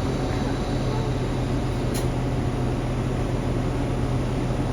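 A steady machine hum under an even hiss, with a single sharp click about two seconds in.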